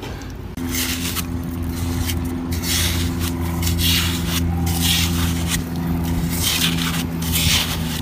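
Hands scraping and digging in wet sand and mud, in short repeated rasps. A steady low engine hum sets in about half a second in and runs under it.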